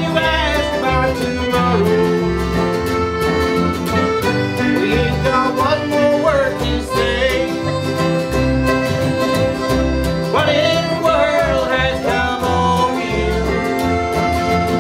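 Folk band playing an instrumental passage: a fiddle carries the melody with sliding notes over a strummed acoustic guitar.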